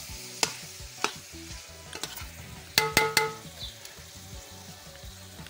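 A long metal spoon stirring beef, onions and peppers frying in an aluminium pot, over a steady sizzle. The spoon scrapes and clicks against the pot, with a cluster of louder, briefly ringing knocks of metal on metal about three seconds in.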